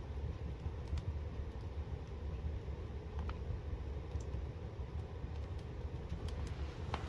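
Fire burning in a home fireplace: a steady low rumble with sparse, sharp crackles about once a second.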